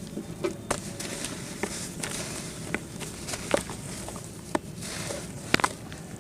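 Chunks of red dirt crumbling, with irregular soft crunches and small crisp cracks, the sharpest crack about five and a half seconds in.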